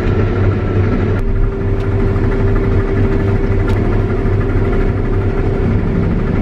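A farm vehicle's engine running steadily, a low drone with a steady whine over it that grows stronger about a second in.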